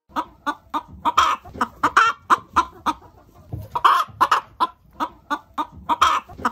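Chickens clucking in a quick run of short calls, about three or four a second, with a few louder, drawn-out calls mixed in.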